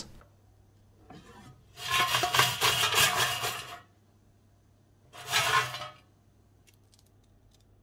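Crisp cooked chips rattling and clattering against the non-stick grill plate of an air fryer basket as the basket is handled. There is a faint rustle about a second in, a longer clatter of about two seconds, then a shorter one near the end.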